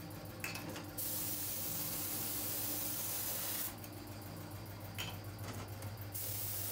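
Compressed-air paint spray gun hissing in bursts while the oil filter canisters are spray-painted black. One long burst starts about a second in and stops near four seconds, and a second starts near the end, over a steady low machine hum.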